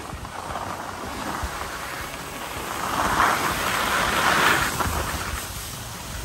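Skis scraping over packed snow on a downhill run, with wind rushing over the microphone; the scraping swells louder about halfway through.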